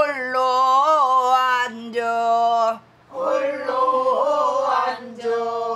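Pansori singing: long sung notes that waver in pitch, in four phrases with short breaths between.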